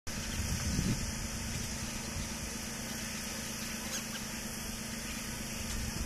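Steady outdoor background noise: a low rumble with a constant hum under a high, even hiss, and a soft low bump just under a second in. No distinct calls from the cockatiel stand out.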